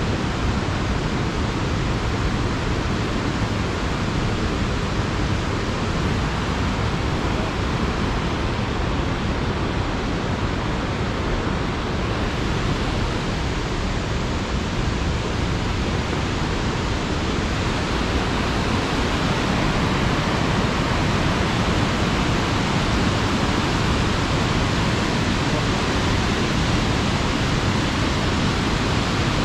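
Waterfall rushing: a loud, steady wash of falling water that grows slightly louder a little past the middle.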